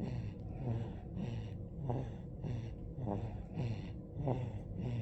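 Loud snoring of a 47-day-old sleeper: quick, rattly snoring breaths, a little more than one a second.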